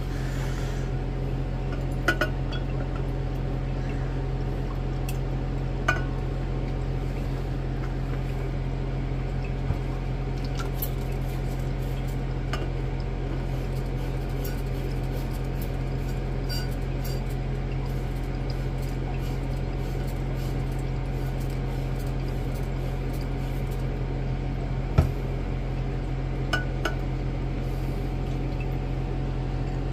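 Glass lab beakers clinking now and then as recovered silver is moved from a large beaker into a smaller one, over a steady low hum.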